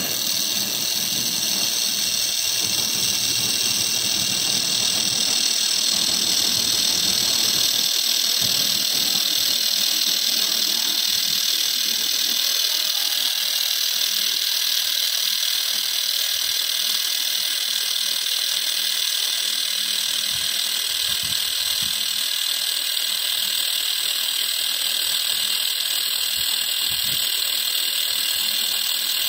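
Handheld laser welding head with wire feed welding a steel corner seam: a steady, even hiss of the weld, starting abruptly as the laser fires.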